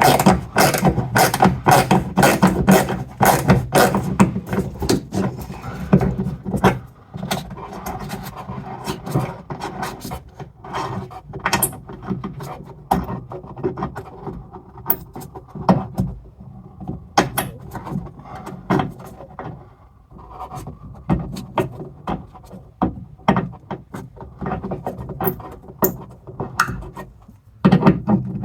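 Ratchet wrench clicking as it undoes the 10 mm screws holding a car's rear wiper motor: a quick, even run of clicks for about the first six seconds, then slower, scattered clicks and handling noise.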